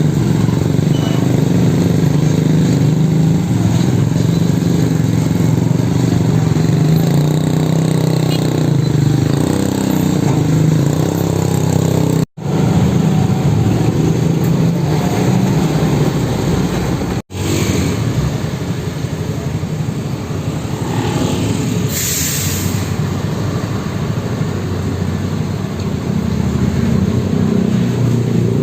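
Heavy diesel trucks running, a loud steady engine drone, with a short hiss of air about two-thirds of the way through. The sound breaks off abruptly twice, at cuts.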